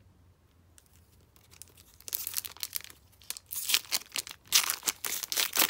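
O-Pee-Chee hockey card pack's foil wrapper being torn open and crinkled by hand. It starts about two seconds in as a dense crackle, louder and sharper toward the end.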